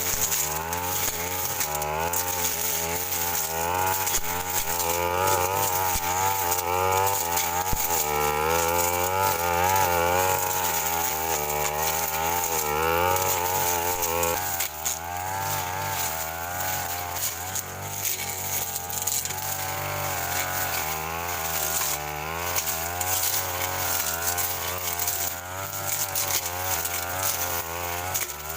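Brush cutter engine running on and off the throttle, its pitch rising and falling over and over as it cuts grass and undergrowth. It runs a little quieter from about halfway through.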